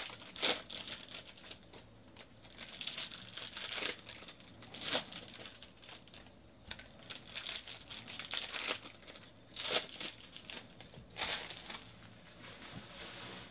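Foil wrapper of a Bowman Draft baseball card pack crinkling and tearing as it is opened by hand, in irregular bursts.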